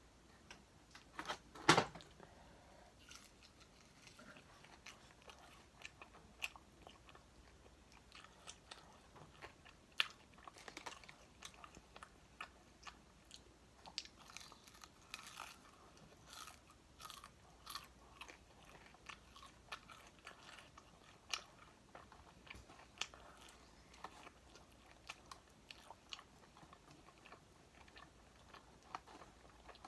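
A person biting into and chewing crispy fried chicken wings: one loud crunching bite about two seconds in, then a long run of smaller crunches and chewing clicks.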